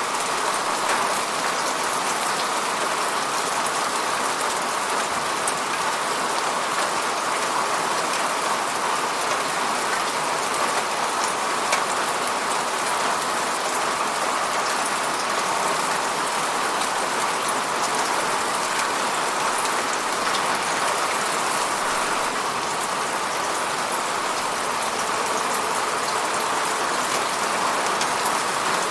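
Steady rain falling, an even hiss full of fine, closely spaced drop ticks, with no thunder.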